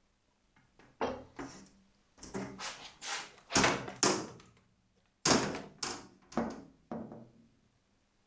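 A string of sharp knocks and thuds, about a dozen and irregularly spaced, loudest about three and a half and five seconds in, from handling a carbon fibre race-car roof panel balanced on a platform scale and the tripod-mounted camera in front of it.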